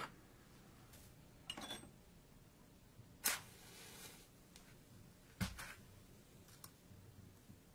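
A wooden match struck about three seconds in, a sharp rasp that flares into a short hiss as it catches. A softer scrape comes before it, and a light knock follows about two seconds later.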